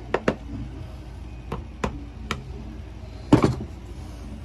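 Scattered sharp clicks and knocks of a screwdriver, small screws and parts handled against the plastic housing of a polisher being unscrewed, with a louder clatter about three and a half seconds in.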